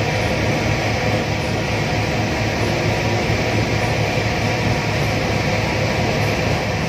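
Tugboat's diesel engine droning steadily while underway.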